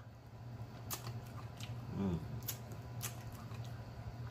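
Close-miked eating sounds: wet lip smacks and scattered sharp mouth clicks as a rib is chewed and pulled at by hand, over a steady low hum.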